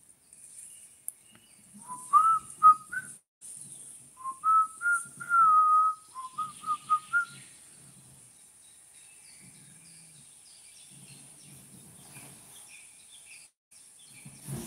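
A person whistling a short tune in two phrases of clear notes, the second longer, with a held note in the middle. Faint chirps follow after the whistling stops.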